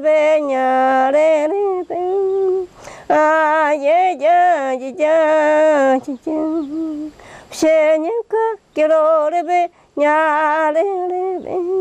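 A woman singing unaccompanied: long held notes with a wavering vibrato, sung in short phrases with brief pauses between them.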